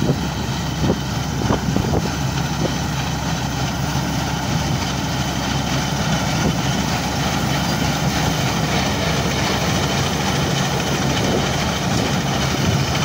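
Massey Ferguson MF 186 combine harvester running steadily under load while cutting and threshing wheat: a continuous drone of engine and threshing machinery, with a few short clicks in the first few seconds.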